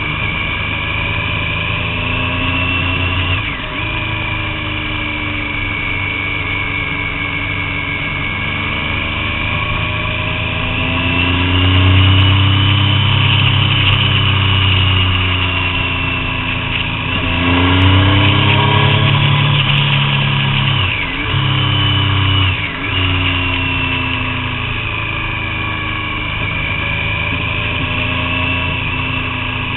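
Triumph Daytona 675 SE's three-cylinder engine running under load, the revs climbing and easing through the bends, with a few sudden breaks and drops in pitch at gear changes, about four seconds in and several times in the second half.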